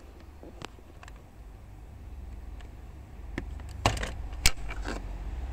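Flat-blade screwdriver prying at the spring clips that hold a 2020 Toyota Innova's driver airbag in the steering wheel: scattered small metallic clicks and scrapes, with two sharp, loud clicks about half a second apart near the end.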